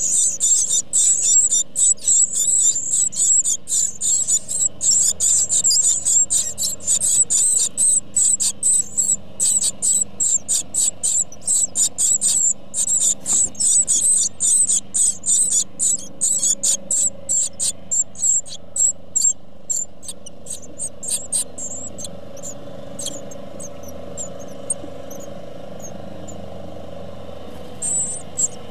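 Great tit nestlings begging: a continuous chorus of rapid, high-pitched cheeping calls while they are being fed. It thins out about two-thirds of the way through and mostly stops, with one short burst of calls near the end.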